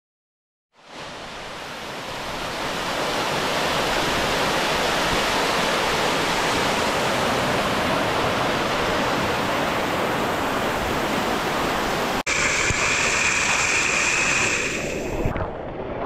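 Waterfall water rushing steadily over rock, starting about a second in and building over the next few seconds. About twelve seconds in it changes abruptly to a closer sound of water falling.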